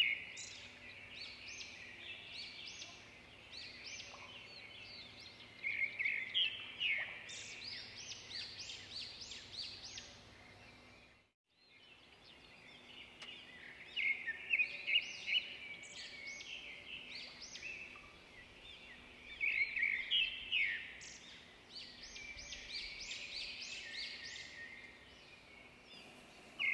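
Recorded birdsong: many small birds chirping and trilling in quick, high phrases. It cuts out for about a second near the middle, then resumes.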